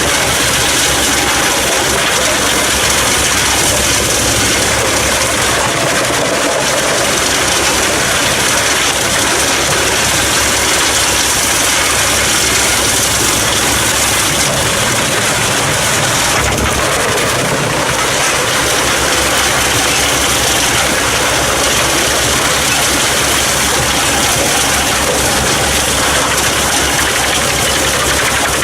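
A Pezzolato PTH 700 drum wood chipper running off the PTO of a 220 hp Fendt tractor: loud, steady machine noise of the engine and the spinning drum.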